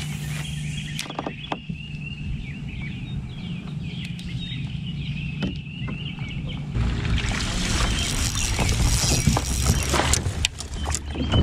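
Spinning reel being cranked and a rod cast from a fishing kayak, with scattered clicks and a high warbling chirping in the background. From about seven seconds in, a louder rushing noise with many small clicks and splashes takes over.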